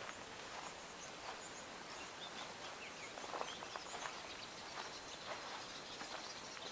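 Faint, scattered bird chirps over a steady hiss of outdoor background noise.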